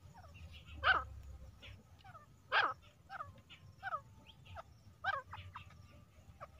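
Female grey francolin (teetar) calling: two loud short calls about a second and a half apart, then a run of quieter, short falling notes.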